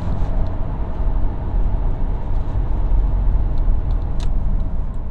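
2012 Subaru Impreza WRX STI on the move, its turbocharged 2.5-litre flat-four running steadily under a low rumble of exhaust, tyre and wind noise, heard from outside at the rear of the car.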